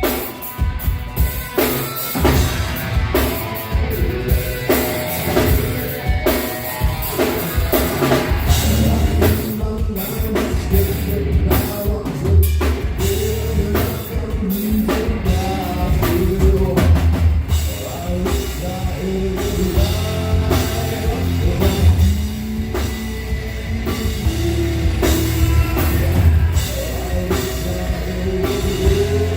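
Heavy rock band playing live: pounding drum kit with kick drum, heavy down-tuned guitars and bass.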